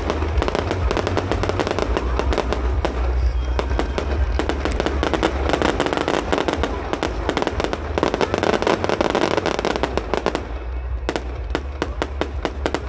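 Fireworks display: a dense crackle of many small sharp bangs, several a second, from white crackling star bursts, over a steady low rumble. The crackle thins out about ten seconds in.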